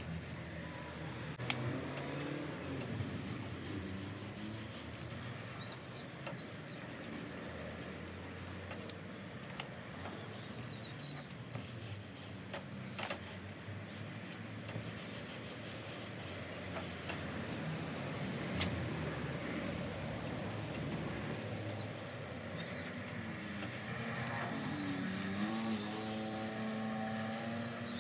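Outdoor background: a steady low hum of distant traffic, with a small bird chirping a few times and a few faint sharp clicks. Near the end a low engine-like drone rises slightly in pitch.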